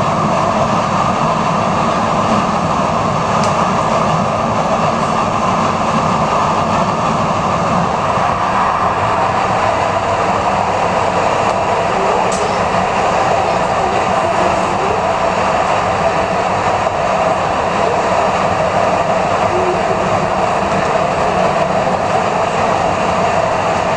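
Ride noise inside a Üstra Stadtbahn light-rail car on the move: a steady rumble of wheels running on the rails that neither rises nor falls.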